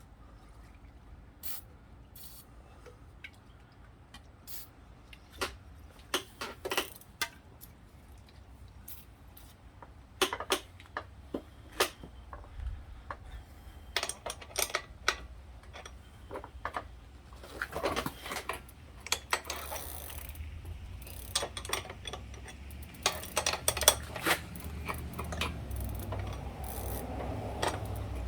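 Wrench and metal tools clicking and clanking against a stuck bicycle pedal and crank, irregular sharp knocks and clinks with a low rumble building near the end.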